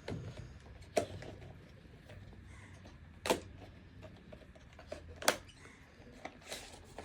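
Phone-case packaging being handled and pulled apart: three sharp clicks or crackles about two seconds apart, a few smaller ones near the end, and faint rustling between.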